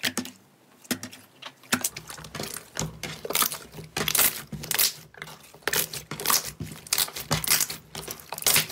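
Pale blue slime being stretched, pressed and kneaded by hand, giving short sticky crackles and pops, sparse at first and then about two a second.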